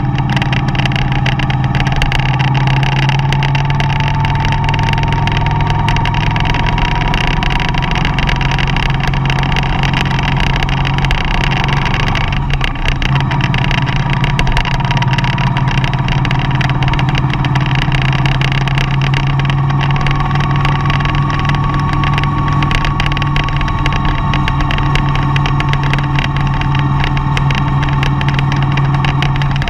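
Mercedes-Benz Vito van driving, its engine and road noise making a steady hum, with a brief break in the sound about twelve seconds in.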